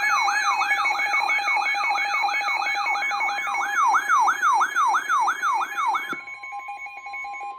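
Electronic emergency siren in a rapid yelp, falling sweeps repeating about two and a half times a second over steady alert tones. It cuts off about six seconds in, and a single steady alert tone carries on alone.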